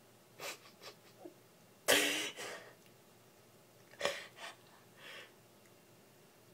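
A dog breathing hard through its nose in short bursts, a few quick sniffs with one loud snort about two seconds in, its nose pressed against its own paw.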